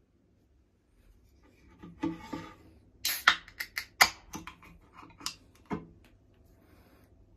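A can of carbonated lemon sour (chu-hi) being handled and opened. A few sharp cracks of the pull tab with a short fizz come about three to four seconds in, then a couple of lighter clicks.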